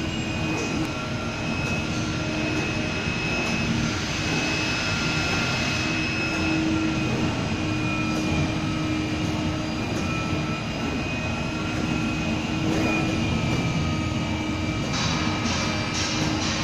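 Ruizhou CNC car mat cutting machine with automatic feeding running: a steady mechanical drone with several high whining tones that drift slightly in pitch. A few short clicks come near the end.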